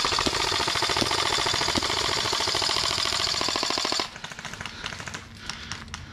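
Airsoft rifle firing one long full-auto burst of rapid, evenly spaced shots that cuts off abruptly about four seconds in. The shooter then thinks he is empty, so the burst likely ended when the magazine ran out.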